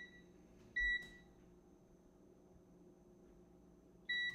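Stainless steel wall oven's electronic control panel beeping as its buttons are pressed to set it to preheat: a short, high beep just under a second in and another near the end, with quiet room tone between.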